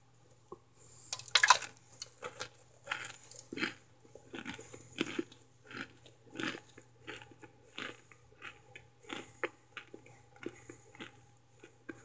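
Brittle microwaved starch chunks crunched between the teeth: a string of sharp, crisp crunches, about one to two a second, the loudest about a second and a half in.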